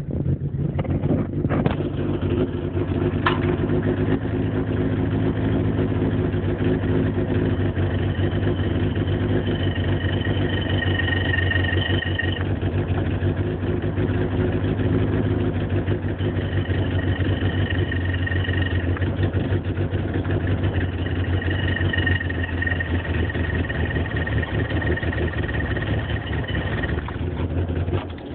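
VW 8-valve ABA 2.0 four-cylinder engine idling steadily, with a high metallic whirling whine that swells and fades about three times over the recording. The noise appeared after the clutch was reinstalled, and the owner rules out the throwout bearing.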